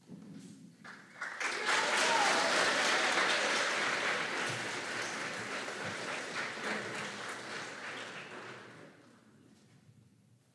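Audience applauding. The clapping starts about a second in, swells quickly, holds, and dies away near the end.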